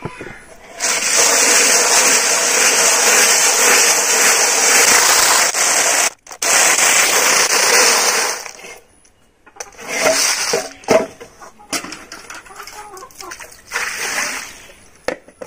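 Snails being washed by hand in a bamboo basket: the shells rub and rattle together in a long loud stretch, then scattered clicks, with water poured over them near the end.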